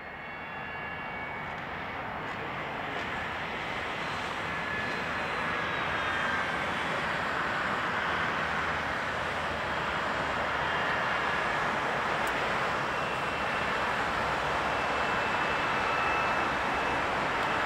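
Yakovlev Yak-40's three Ivchenko AI-25 turbofan engines running at taxi power: a steady rush with high whining tones that drift slowly in pitch, growing gradually louder as the jet taxies closer.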